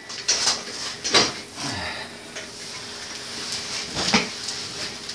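A few sharp metal clinks, with scraping and rustling in between, from tools and parts being handled on a BMX bike as its chain and rear wheel are taken off.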